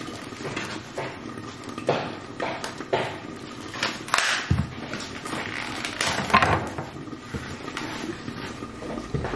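Plastic packaging rustling and crinkling in irregular bursts as it is handled, with one dull knock about four and a half seconds in.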